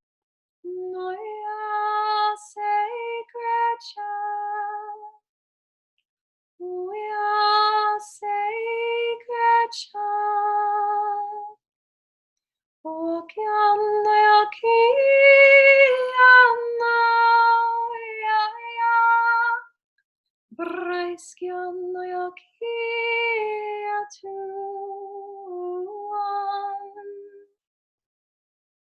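A woman singing wordless, sustained vocal tones in the light-language style of sacred sound healing, in four phrases of gliding, held notes separated by short pauses.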